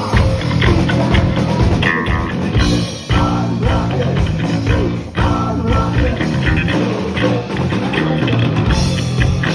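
Heavy metal band playing: electric guitars, bass guitar and drum kit.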